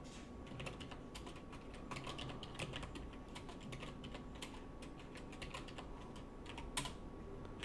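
Typing on a computer keyboard: a run of quick, irregular, faint key clicks as lines of code are entered.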